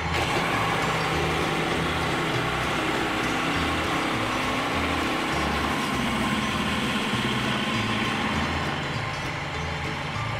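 Woodland Mills HM130 portable bandsaw mill running steadily: its small gasoline engine drives the band blade through a beech cant, sawing off a narrow board.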